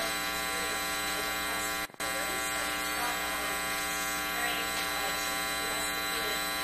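Steady electrical buzz made of many evenly spaced tones, with a faint, distant voice of an audience member asking a question off-microphone underneath. The sound drops out briefly about two seconds in.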